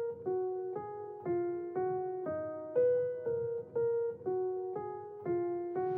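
Background music: a slow keyboard melody of single notes, each struck and fading, about two a second.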